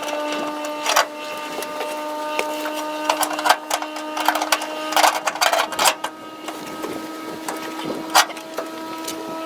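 Irregular metallic clicks and clanks of hand tools working bolts on a truck's seat-belt brackets, over a steady hum.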